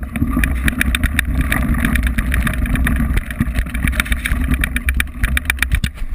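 Mountain bike riding down a rocky trail, heard from a camera mounted on the bike or rider. There is a steady heavy low rumble of wind and vibration on the microphone, and the bike rattles and knocks many times over the stones.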